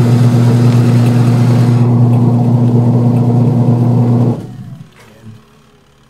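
Sharp single-tub washing machine's wash motor running on test, driving the tub pulley through a new M26 V-belt. A loud steady hum, with a hiss over it for the first two seconds, cuts off about four seconds in.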